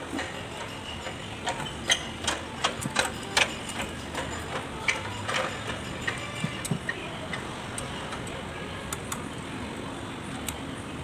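Light metallic clinks and taps of steel parts being handled and set down on a workbench during propeller-shaft reassembly: a quick run of sharp clicks in the first few seconds, then scattered single ones.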